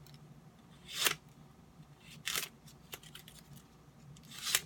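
A freshly sharpened knife slicing into a piece of plastic to test its edge: three short rasping cuts about a second apart.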